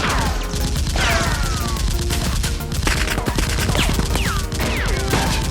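Rapid gunfire sound effects, a dense volley of shots, with several falling whistling tones, over background music.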